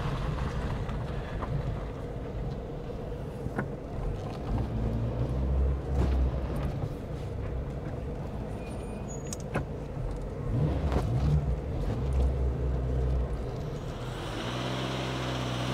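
Triumph Acclaim's four-cylinder petrol engine running as the car is driven away at low speed, swelling a few times, with the engine note rising steadily near the end.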